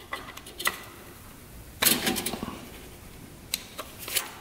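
Motorcycle carburetors and metal parts handled on a workbench: a few separate sharp metallic clicks and clatters, the loudest cluster about two seconds in.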